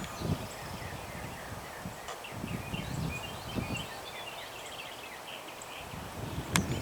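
Small birds chirping in many quick short notes, with wind gusts rumbling on the microphone. A sharp click comes near the end.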